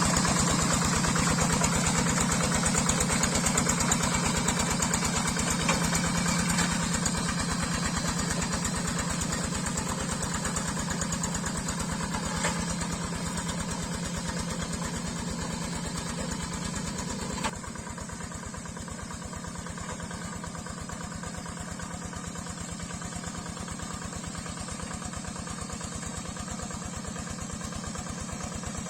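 Yanmar single-cylinder diesel engine of a Quick G3000 Zeva two-wheel hand tractor running steadily with a rapid, even knock. It grows gradually fainter and drops suddenly in level about two-thirds of the way through.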